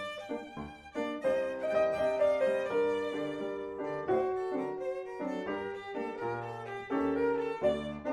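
Music score with a violin playing a lively melody over a lower accompaniment.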